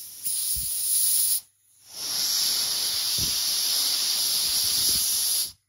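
Air blown at the engine fans of a 1:200 scale Boeing 747-400 model to try to make them spin: a short hiss, a brief break, then a longer steady hiss of about three and a half seconds, with a few low thumps.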